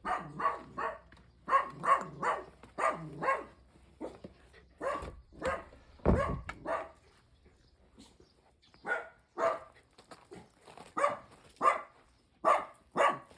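A dog barking repeatedly, in several runs of quick barks with short pauses between them.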